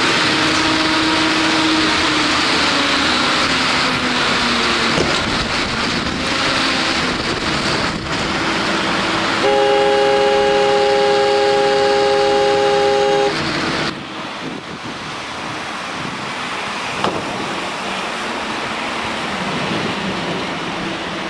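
Motorboat engine running under a heavy rush of wind and water noise. About nine and a half seconds in, a horn sounds one steady multi-tone chord for about four seconds. A few seconds later the rush drops to a lower, quieter noise.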